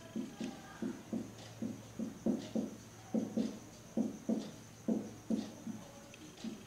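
Felt-tip marker writing on a whiteboard: a quick, uneven series of short strokes, about two or three a second, over a steady low hum.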